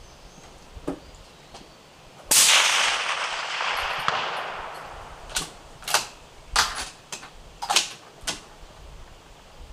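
A suppressed Steyr SSG 08-A1 bolt-action rifle in .308 Win, fitted with an Otter Creek Labs Hydrogen suppressor, fires one shot a couple of seconds in, with a long echoing tail that fades over about two and a half seconds. About six sharp metallic clicks follow as the bolt is worked.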